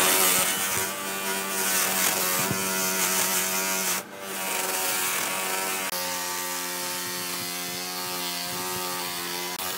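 Handheld power tool spinning a yellow brush wheel on a long shaft, scrubbing the rough surface of an old wooden railway sleeper: a steady motor whine with the rasp of bristles on wood, briefly dipping about four seconds in.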